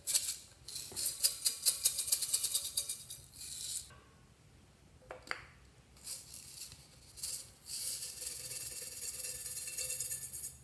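Small dry beads and sprinkles rattling and pouring out of a soda can into a glass dish of slime, in two long runs with a single tap between them.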